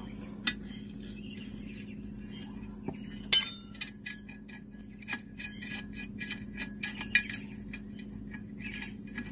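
Small metallic clicks and clinks of a wrench and nut as a steel chopper blade is unbolted from a pump-motor shaft. About three seconds in comes one loud clink that rings on briefly. Crickets chirp steadily underneath.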